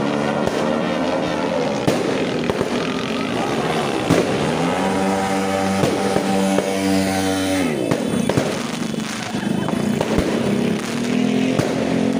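A vehicle engine revving up and down loudly, rising about four seconds in, holding, then dropping off near eight seconds. Sharp pops from the shots of a 16-shot fireworks cake come through it.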